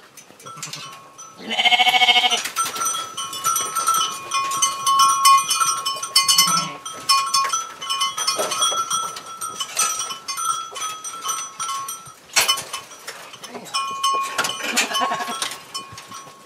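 St Croix sheep bleating, one loud wavering bleat about two seconds in, over the rattle and clink of metal livestock gates and wire mesh being pushed.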